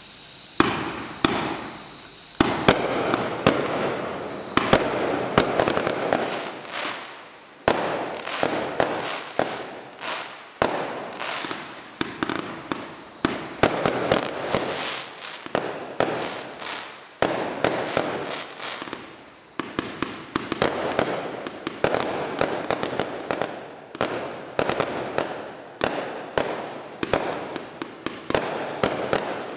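Bright Star Fireworks Battleship compound barrage cake firing: a fast, near-continuous run of launch shots and aerial bursts, several a second, with a noisy hiss between them.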